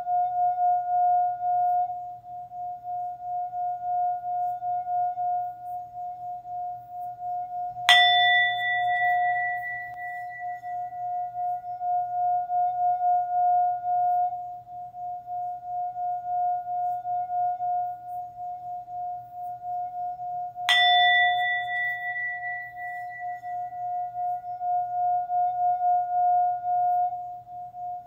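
Singing bowls: a steady ringing hum on one pitch that wavers and pulses in loudness, with a bowl struck twice, about eight seconds in and again about thirteen seconds later, each strike ringing out with bright higher overtones that fade over a few seconds.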